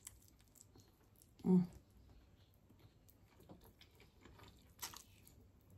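Faint chewing and biting on spicy chicken wings, with small wet mouth clicks and smacks, and a brief vocal sound about a second and a half in.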